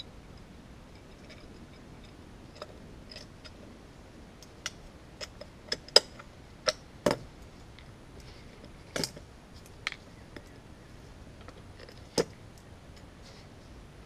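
Irregular sharp metallic clicks and knocks from the parts of a disassembled ECM condenser fan motor being handled and fitted together, the loudest few near the middle, over a faint steady hiss.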